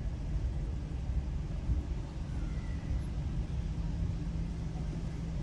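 Steady low rumble of a car heard from inside its cabin while it stands still, the engine idling.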